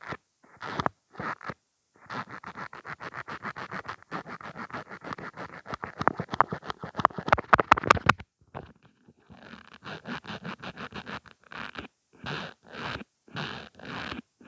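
Mascara wand being worked in and out of its tube close to the microphone: quick wet, scratchy strokes, about five a second, a short pause, then slower single strokes.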